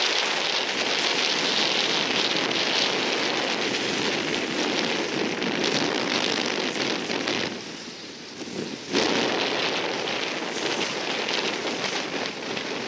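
Strong wind rushing over the microphone with water chop and splashing, a steady rushing noise that drops away briefly about two-thirds of the way through and then returns abruptly.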